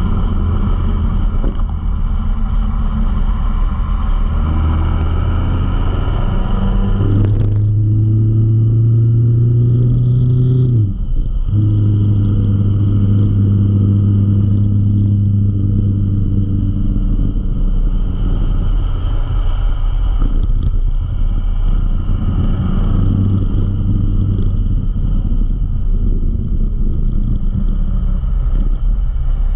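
Motorcycle engine running under way with heavy wind noise over the microphone. A few seconds in the engine note climbs as the bike accelerates, breaks off briefly about eleven seconds in as the rider changes gear, then holds a steady cruising note.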